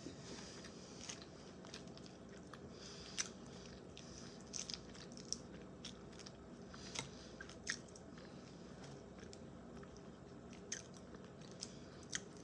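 Close-up chewing and crunching of a chicken salad with ranch, with scattered sharp mouth clicks and smacks.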